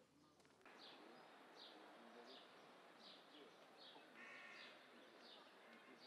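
Faint forest ambience: a songbird repeating a short, high, downward chirp about once every two-thirds of a second over a soft background hiss, starting about half a second in.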